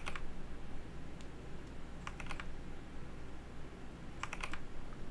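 Computer keyboard and mouse clicking in short clusters a second or two apart, as Ctrl and R are pressed again and again and a mouse button is clicked. A low steady hum sits underneath.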